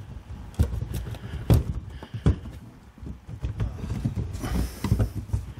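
Irregular knocks, taps and rubbing as hands tug at a car's plastic pillar trim and fabric headliner, mixed with handling noise from the hand-held phone. The loudest knock comes about a second and a half in.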